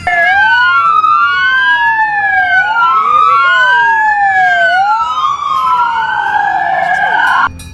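Police car siren wailing: two tones sweep slowly up and down against each other, one rising while the other falls, every couple of seconds. It cuts off suddenly just before the end.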